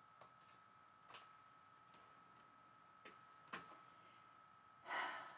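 Near silence as hands handle paper pieces and twine on a craft table: a few faint light taps, then a short paper rustle near the end, over a faint steady high whine.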